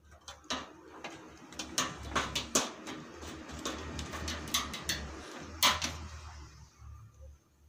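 Household objects being handled: an irregular run of clicks, knocks and clattering with rustling and a low rumble, two sharper knocks standing out in the middle and later.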